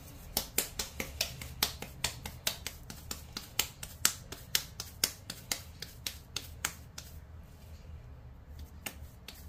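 Hands patting a ball of soft vanilla cookie dough flat between the palms. It makes a quick run of light slaps, about four or five a second, that thins out to a few scattered pats after about seven seconds.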